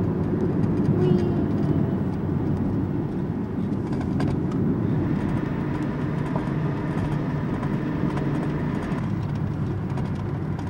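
Car cabin noise while driving: a steady low rumble of engine and tyres on the road, heard from inside the car.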